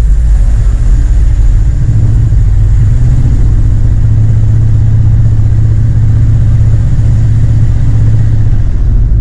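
Truck engine running at low speed while the truck creeps onto a ferry's vehicle deck, heard from inside the cab. It is a loud, steady low drone that strengthens about two seconds in and eases just before the end.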